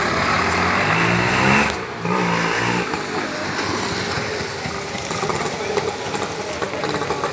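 Auto-rickshaw (three-wheeler) engine revving hard as it accelerates, its pitch climbing, breaking off just before two seconds in, and climbing again. It then runs on more evenly and fades slightly as the vehicle pulls away.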